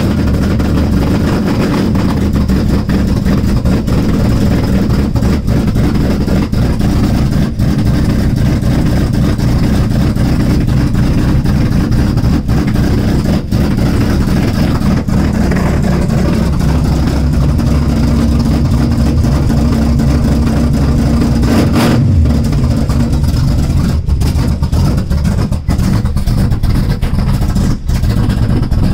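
1973 Chevrolet truck's 454 big-block V8, fitted with a Big Mutha Thumpr cam and glass-pack mufflers on a full exhaust, running loud just after a cold start.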